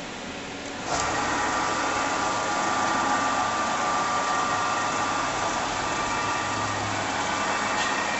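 Bridgeport Romi EZ-Path CNC lathe's motors coming on about a second in and running with a steady whine.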